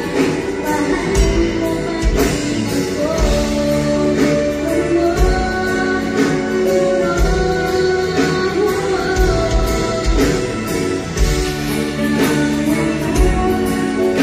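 Live band music: a woman singing over a drum kit and keyboard, with a regular bass-drum beat underneath.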